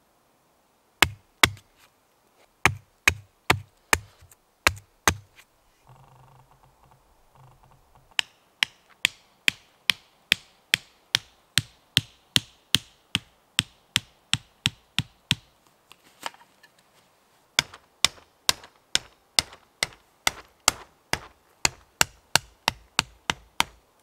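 Hatchet poll hammering wooden tent stakes into the forest floor. First come a few spaced blows with a dull thud, then steady runs of sharp wooden knocks, about two to three a second, with a short pause in the middle.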